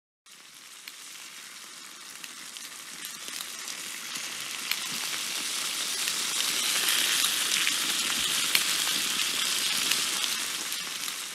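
A crackling, sizzling hiss scattered with sharp little crackles. It swells slowly over about seven seconds and then begins to fade.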